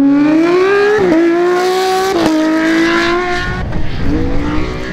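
Porsche 911 GT3 rally car's flat-six engine at full throttle. Its pitch climbs and drops sharply at two upshifts, about one second and about two and a quarter seconds in, then fades as the car pulls away.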